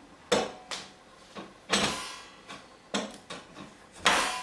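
Cast-iron parts of a Jøtul 602N wood stove clanking together as the stove door is handled and taken off. There are about five sharp metal knocks, each with a short ringing decay.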